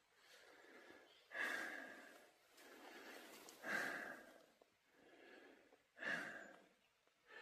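A person breathing heavily close to the microphone: three audible breaths out about two and a half seconds apart, with fainter breaths between.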